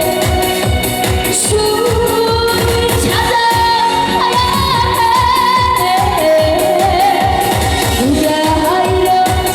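A song sung live to an amplified backing track with a steady beat; the singer holds notes with vibrato.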